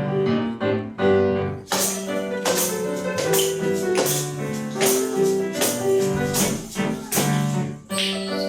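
Piano playing a lively tune while a children's ensemble of hand percussion, tambourine-like shakers and jingles, joins in about two seconds in, striking and shaking on the beat about twice a second.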